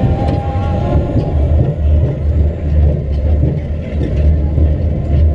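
Roller coaster car running along its track, heard from a camera on board: a loud, steady, pulsing low rumble, with a thin high whine in about the first second.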